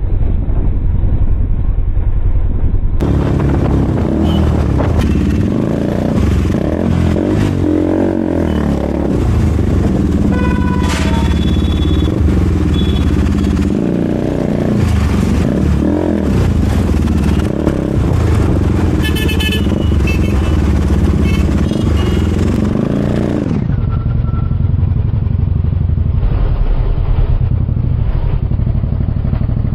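KTM RC200's single-cylinder engine through an SC-Project aftermarket exhaust, loud, revving up and easing off again and again while riding.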